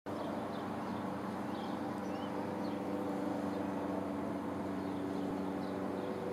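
Steady mechanical hum, like a distant engine, with several even tones held throughout. A few faint, short, high bird peeps come now and then.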